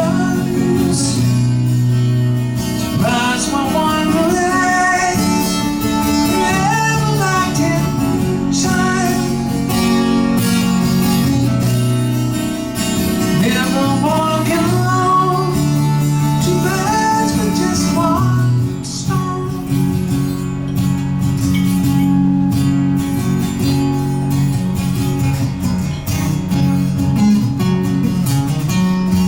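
Live acoustic guitar strumming chords through an instrumental break of the song, with a melody line of bending notes played over it for much of the passage.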